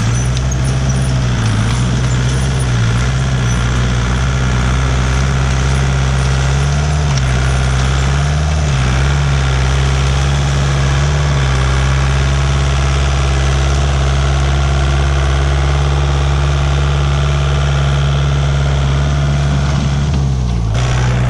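A large engine, most likely on the clean-up crew's machinery, running steadily and close by. Its speed dips and rises slightly a few times.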